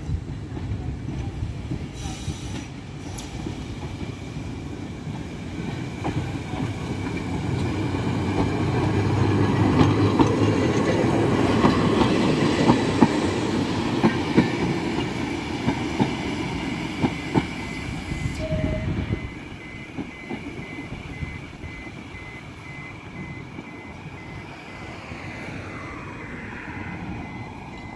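Manx Electric Railway tram and its open trailer car passing close by on the track, a rumble that grows louder as they go past, with the wheels clicking over the rail joints, then dropping away suddenly about two-thirds of the way in.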